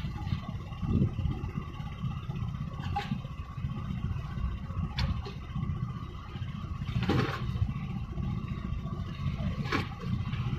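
Low steady rumble of a small boat's engine running, with water slapping against the hull a few times.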